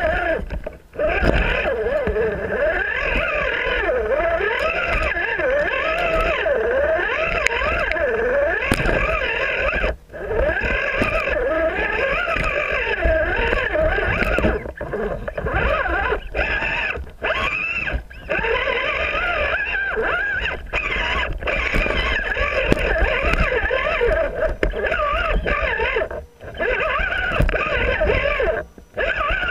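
RC rock crawler's electric motor and gearbox whining, the pitch rising and falling with the throttle as it climbs over rocks, with a few brief stops.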